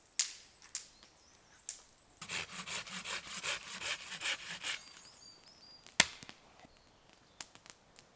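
Wood being cut by hand with a cutting tool. A few sharp knocks come first, then a quick run of even strokes, about five a second, for two to three seconds. A single loud sharp crack follows about six seconds in.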